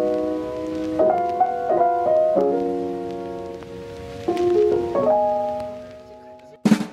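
Background music: slow, sustained piano chords that change about once a second and fade out near the end.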